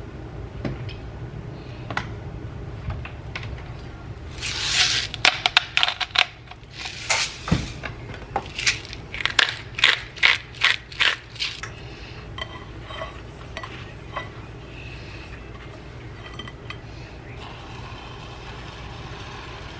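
Kitchen handling sounds: a run of sharp, crunching clicks, about two or three a second, from a hand-held seasoning container worked over a tortilla of scrambled eggs, with one heavier knock partway through. Lighter clicks and rustles follow from handling the tortilla and the pan.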